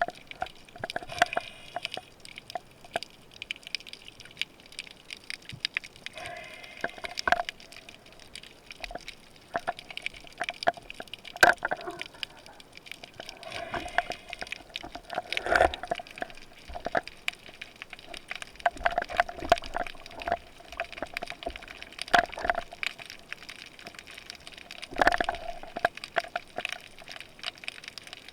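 Water sounds heard while spearfishing: gurgling and sloshing around the microphone, with frequent sharp clicks and crackles and a few louder gurgling surges.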